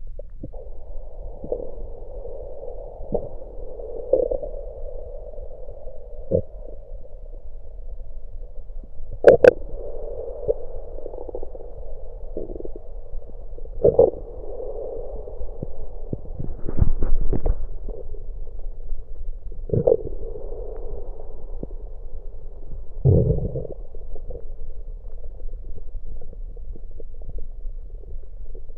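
Stomach gurgling with cola in it, heard through an electronic stethoscope pressed to the belly: a steady bubbling gurgle broken by a string of sudden pops. The loudest pop comes about nine seconds in, and a deeper rumbling gurgle comes late on.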